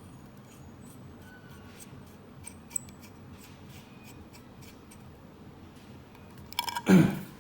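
Faint scattered clicks and ticks of a small screwdriver and parts being handled on a bench, then a loud, rattling clatter of several knocks about a second before the end.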